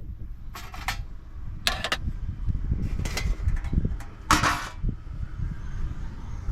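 Pieces of scrap aluminum from a stripped coffee maker being set down and clattering onto a scale: about four separate clanks and rattles, the loudest a little past halfway.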